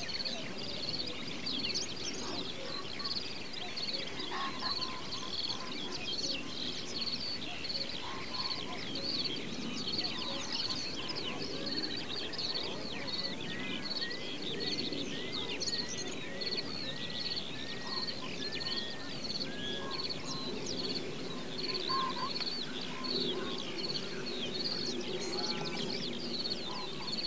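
A dense chorus of many songbirds singing and chirping throughout, with one bird repeating a short note about twice a second for several seconds in the middle, over a lower steady murmur.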